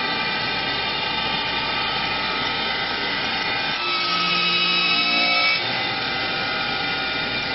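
Four-cutter CNC wood lathe running and machining a wooden chair leg: a steady whine of spindle motors over cutting noise. About four seconds in the sound changes for a second and a half, getting a little louder with a different set of tones, then returns to the steady run.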